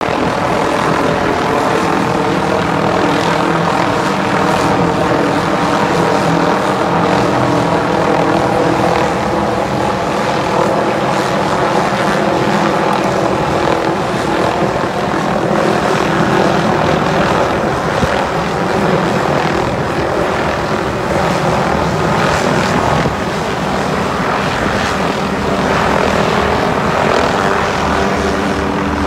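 Light helicopter flying close by, its rotor and engine running steadily and loudly.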